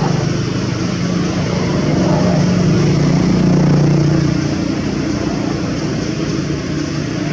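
A steady, rough low motor hum that swells for a couple of seconds in the middle and then eases back.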